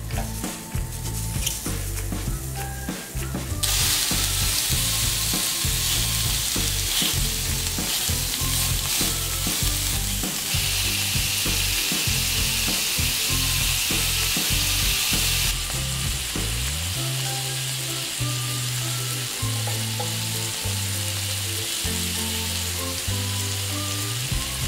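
Sausages sizzling in a ridged grill pan: a steady hiss of frying that swells about four seconds in and stays loud through the middle. A background music bass line runs beneath it.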